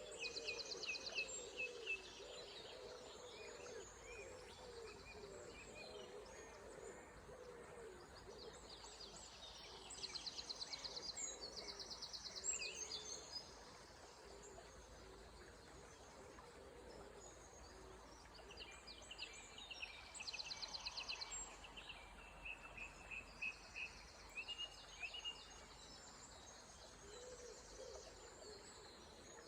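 Early-morning dawn chorus of several songbirds singing high, rapid trilled and twittering phrases in bursts, quieter for a few seconds around the middle. A low repeated cooing or hooting call sounds underneath at the start and again near the end.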